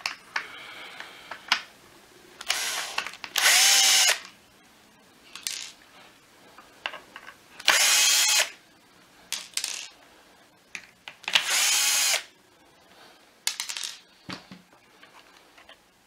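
Cordless drill-driver backing screws out of a plastic vacuum motor housing: three main runs of about a second each, the motor's pitch rising and falling in each, with short trigger blips and small clicks of handling between.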